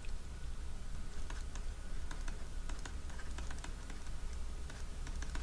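Pen stylus tapping and scratching on a tablet surface while handwriting, a string of light, irregular clicks over a faint low hum.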